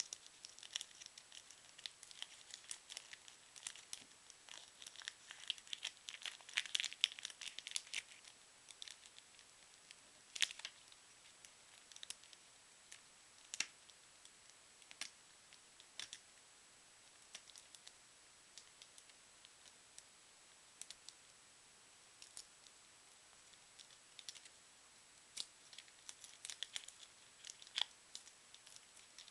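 Mamba fruit chew wrappers being unwrapped by hand: crinkling and tearing, busiest in the first eight seconds and again near the end, with scattered single crackles in between.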